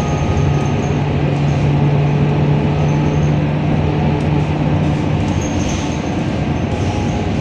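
Interior noise of a moving Scania K230UB city bus: the rear-mounted five-cylinder diesel engine drones under a rumble of road and body noise. A steady low hum from the drivetrain drops away about five seconds in.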